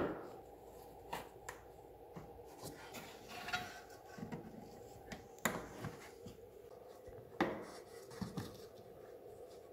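Plastic push-in clips being pressed into a Tesla Model 3's plastic inner wheel-arch liner: scattered small clicks and handling rubs, with two louder snaps about five and a half and seven and a half seconds in, over a faint steady hum.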